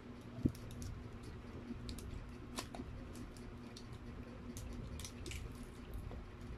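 Plastic sauce sachet squeezed over food, with faint crinkles and small clicks and one dull knock about half a second in, over a steady low hum.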